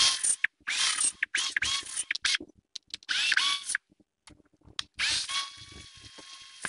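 Cordless drill boring into and driving screws through a wooden butterfly key in a solid-wood table, run in several short bursts with the motor's pitch rising and falling, then a longer steady run near the end.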